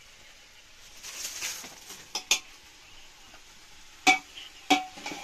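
Metal ladle stirring food in an aluminium cooking pot, then knocking against the pot four times, each a sharp clink with a short ringing tone.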